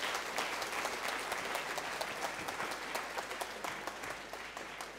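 Audience applauding, a dense patter of many hands clapping that thins out and fades near the end.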